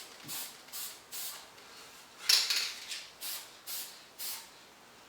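Aerosol spray-paint can giving about seven short, quick hissing bursts, one louder burst near the middle. These are light feathering passes for a first coat of paint, kept short to avoid sags and runs.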